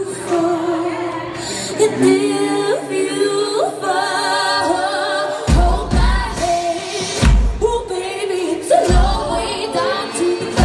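Live band: several voices singing in close harmony with a woman's voice leading. About halfway in, a heavy low drum beat enters, one hit roughly every second and a half.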